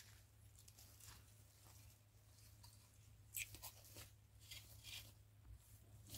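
Faint, scattered crackles and tearing of Komodo dragons feeding on a buffalo carcass, the sharpest a little past halfway, over a steady low hum.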